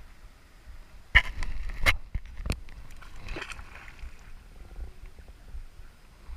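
Water splashing and sloshing, with three sharp knocks between about one and two and a half seconds in.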